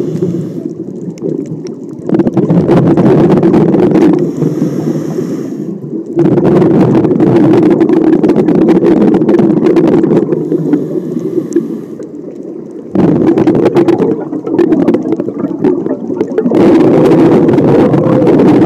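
Scuba diver breathing through a regulator underwater: long rushes of exhaled bubbles alternating with shorter, quieter hissing inhalations, roughly three breaths.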